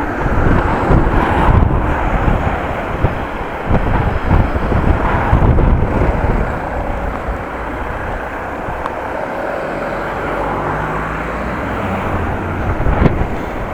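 Strong wind buffeting the microphone, in heavy rumbling gusts for the first six seconds and then a steadier rush, with car traffic beside the bicycle.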